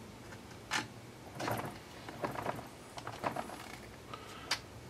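Scattered small clicks and taps of plastic and metal parts being handled and fitted together on an RC truck drive shaft and link, some in quick clusters, with a sharper click near the end.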